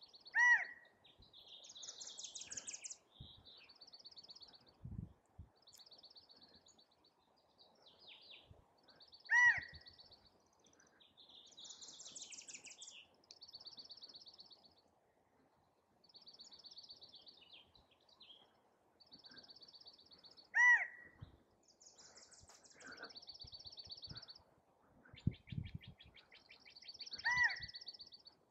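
Male California quail giving its loud single call four times, seven to eleven seconds apart, each a short note that rises and falls in pitch: the male calling for a mate. Other small birds sing rapid high trills between the calls.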